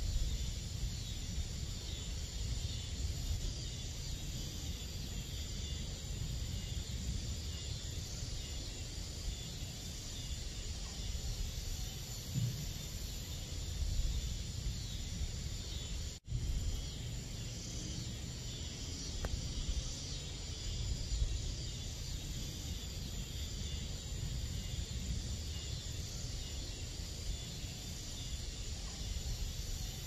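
Steady chorus of crickets and other night insects, with a low rumble underneath. The sound cuts out for a split second about halfway through, then resumes.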